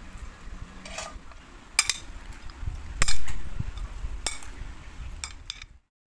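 Two metal spoons tossing a salad of sliced radish, tomato and dried anchovies in a bowl, clinking against each other and the bowl about five times, the loudest clink about three seconds in. The sound cuts off just before the end.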